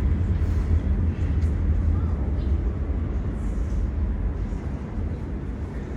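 New York City subway S shuttle train rumbling into the station, a deep steady rumble that gradually eases.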